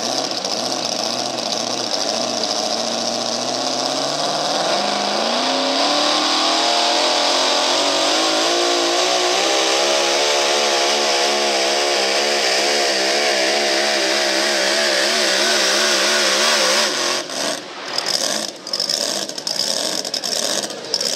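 Modified pulling pickup's engine at full throttle dragging the weight-transfer sled. The revs climb over the first several seconds, then hold high with a wavering pitch. About seventeen seconds in the sound drops off suddenly and turns choppy as the throttle comes off.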